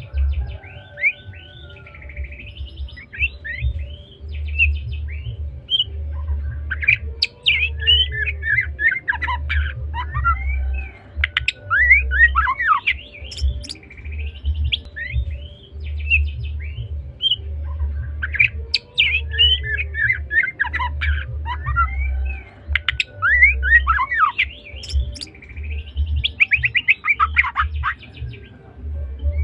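White-rumped shama (murai batu, Medan type) singing continuously: rapid, varied phrases of clear whistles, sweeping slurs and fast chattering trills. Under the song a low thump pulses about once a second.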